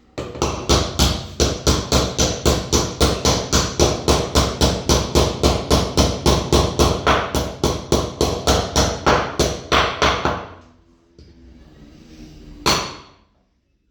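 Hammer driving a new drum bearing into a washing machine's tub: quick, even blows, about four or five a second, for roughly ten seconds, then a pause and one more single blow near the end.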